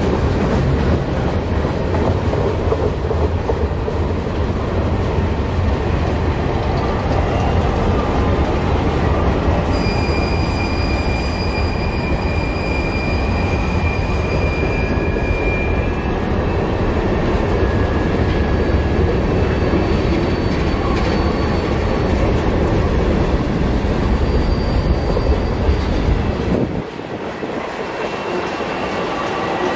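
Freight train rolling past, a steady heavy rumble of the cars with high-pitched wheel squeal tones coming and going from about ten seconds in. The deep rumble drops away abruptly near the end, leaving the squealing.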